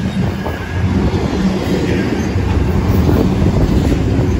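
Freight cars of a long intermodal and autorack train rolling past close by: a loud, steady rumble of steel wheels on the rails, growing a little louder about a second in.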